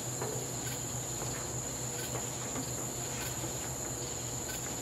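Steady high-pitched chorus of night insects, an unbroken trill, over a low steady hum.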